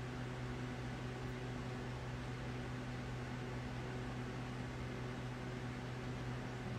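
Steady low hum with an even hiss underneath: constant room background noise, such as a fan or ventilation running.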